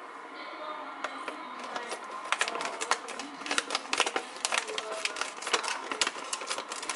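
Plastic shrimp bag crinkling and crackling in rapid, irregular clicks as a knife cuts open its top.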